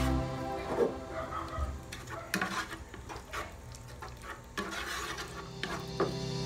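A wooden spatula stirs and scrapes a chilli-garlic mixture frying in oil in a nonstick pan, with several sharp scrapes and taps against the pan at uneven times over a faint sizzle.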